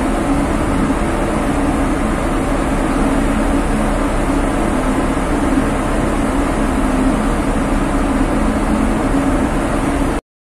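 Steady drone of a ship underway: a low engine hum under a constant rush of wind and machinery noise. It cuts off suddenly at the very end.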